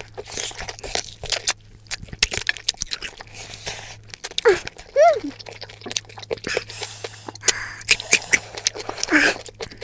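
Spoon and fork clicking and scraping against a ceramic plate, mixed with close-up chewing and biting sounds, over a steady low hum.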